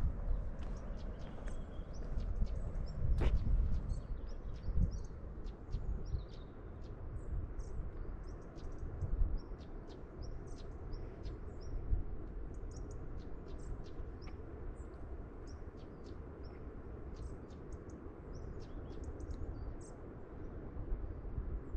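Small birds chirping in short, high calls over and over, over the low rumble of wind buffeting the microphone, which gusts up a few seconds in and again around the middle.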